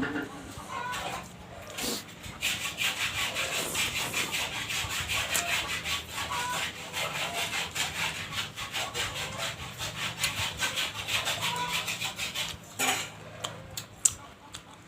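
A person chewing food close to the microphone: a fast, continuous run of chewing strokes for about ten seconds, stopping near the end, with a couple of single clicks after.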